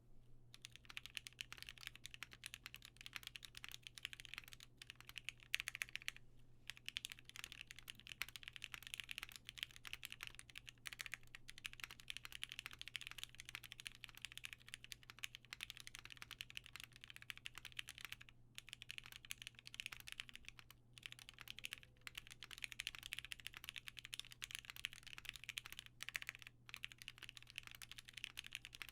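Continuous typing on a Matrix 8XV2.0 Additional mechanical keyboard with lubed vintage Cherry MX Black linear switches on an aluminium plate and PBT keycaps: a dense stream of clacky keystrokes, broken by a few short pauses.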